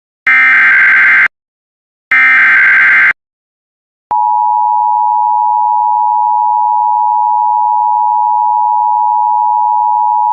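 Emergency Alert System SAME header: two one-second bursts of digital data tones about a second apart, the last two of the header's three repeats. About four seconds in, the steady two-tone EAS attention signal (853 and 960 Hz together) starts and holds, marking the start of an emergency alert, here a severe thunderstorm warning.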